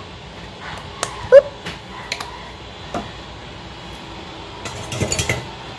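Mayonnaise squeezed from a plastic squeeze bottle: one short squelching squeak about a second in, then a few light clicks, and a cluster of small knocks and squeaks near the end.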